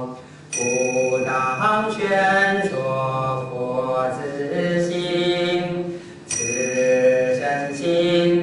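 A man chanting Buddhist verses in Mandarin to a slow melody, holding long notes, with two short breaths: one about half a second in and one about six seconds in. A thin, steady high tone sounds with the start of each phrase.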